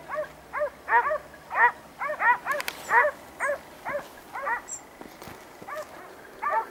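Hunting dogs barking in a quick, irregular run of short barks, about two to three a second, thinning out near the end.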